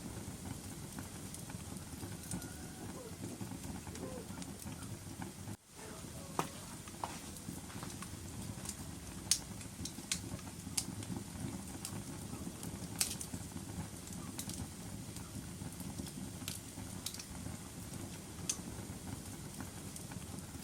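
Wood fire burning in a fireplace: a steady low rumble of the flames with irregular sharp crackles and pops. The sound cuts out for an instant about five and a half seconds in.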